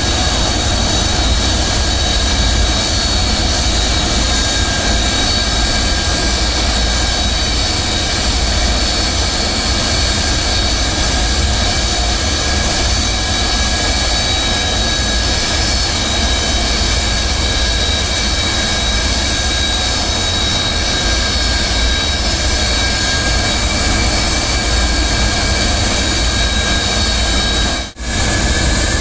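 Four Lotarev D-18T turbofans of an Antonov An-124-100 running steadily: a loud low rumble under several steady high whines. The sound briefly cuts out near the end.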